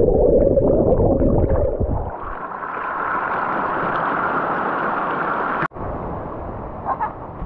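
Mountain stream heard with the camera underwater: a loud, muffled gurgling rush among bubbles and stones. About two seconds in it opens into the brighter, steady hiss of shallow water running over stones. Near the end a cut brings a quieter, steady stream sound.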